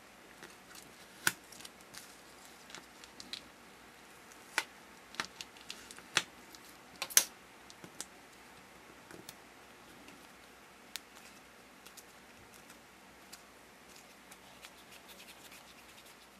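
Plastic cutting tool and modelling dough being handled on a plastic mat: a few sharp clicks and taps, the loudest about a second in and between about five and seven seconds in, with fainter scratching and ticking between.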